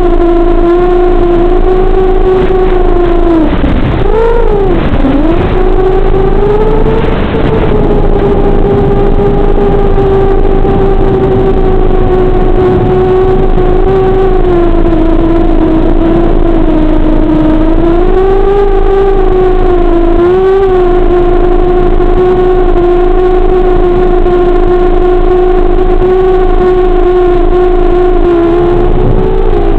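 FPV plane's electric motor and 7-inch propeller running at a steady pitch. The pitch dips and comes back about four seconds in, and again briefly around twenty seconds.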